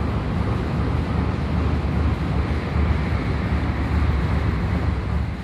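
Wind buffeting the microphone in a steady low rumble, fading near the end.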